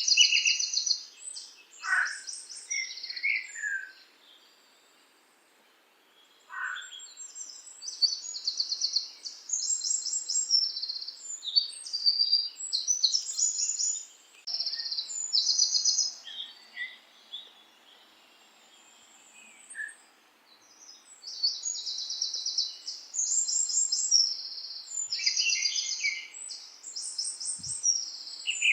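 Several songbirds singing: high, rapid trills and chirps, with a few whistles that slide downward. The birds fall quiet briefly a few seconds in and again a little past the middle.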